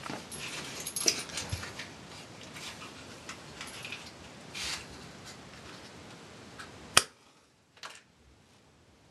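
Scattered small clicks and rustles of handling in a small room, then one sharp, loud click about seven seconds in, after which it goes much quieter.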